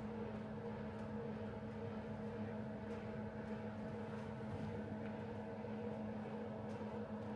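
A steady mechanical hum made of several constant tones over a low haze, with no distinct knocks or changes.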